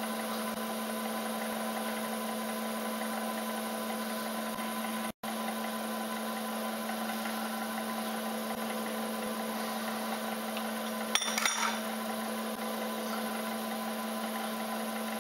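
Bridgeport-style milling machine running steadily with a 5 mm carbide end mill in the spindle, working slowly at a sheared screw in the cylinder head, with a constant hum. The sound drops out for an instant about five seconds in, and a brief scratchy cutting noise comes about eleven seconds in.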